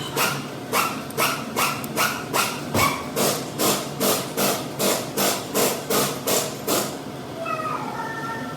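Hand-tool work on an engine in steady, even strokes, about two and a half a second, stopping about seven seconds in. A brief high gliding squeak or cry follows near the end.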